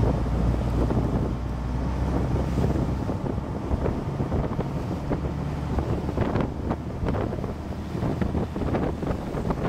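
Wind buffeting the microphone on the open bow of a small ferry under way, with water splashing against the hull. The heavy low rumble eases about three seconds in, after which irregular splashes stand out.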